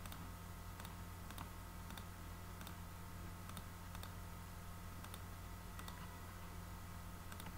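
Faint computer mouse clicks, several of them spaced roughly a second apart, over a steady low electrical hum.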